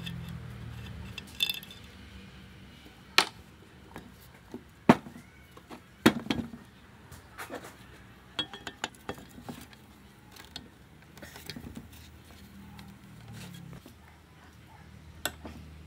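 Metal tools and engine parts clinking and knocking on a workbench, in scattered single strokes and small clusters. Three sharper knocks stand out about three, five and six seconds in, over a low steady hum.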